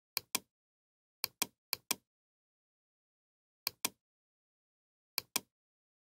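Computer mouse button clicks: five pairs of short, sharp clicks, each pair a quick press and release or double-click, with dead silence between them.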